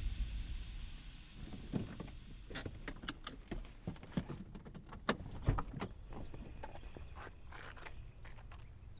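Steady car road noise dies away, followed by a few seconds of irregular sharp clicks and knocks. From about six seconds in, a steady high-pitched insect drone comes in, with small chirps over it.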